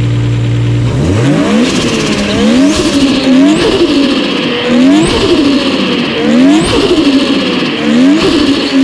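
Built Nissan RB25DET turbocharged straight-six, with a Hypergear ATR45 ball-bearing turbo, steady for about a second and then blipped in quick revs, roughly one a second. Each lift-off carries the turbo flutter (compressor surge) that comes from running no blow-off valve. Heard from right beside the pod filter intake, so the flutter is muffled.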